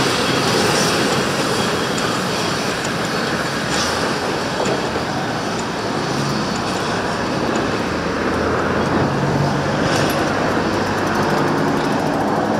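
Train hauled by an Rx-class steam locomotive running on the line, a steady rumbling noise with no clear beat.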